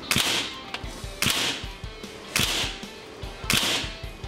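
Four shots from a suppressed SIG Sauer ASP20 .177 gas-piston breakbarrel air rifle, evenly spaced about one a second, each a sharp crack that dies away quickly. Background music plays under them.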